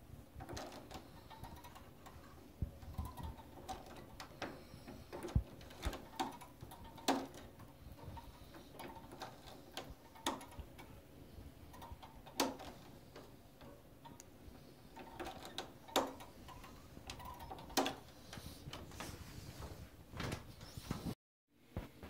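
Faint, irregular clicks and knocks every couple of seconds, with low rumbles between them: handling noise from a handheld camera. The sound drops out completely for a moment near the end.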